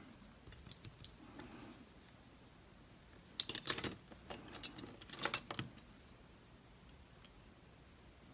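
Small metal parts of a DOM RS8 lock cylinder and the tools working them clicking and rattling as it is disassembled, in two short clusters of quick clinks about three and a half and five seconds in.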